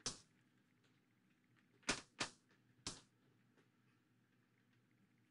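Metal palette knife working thick modeling paste on a canvas board: four brief scrapes, one at the start, two close together about two seconds in and one about a second later, with near silence between.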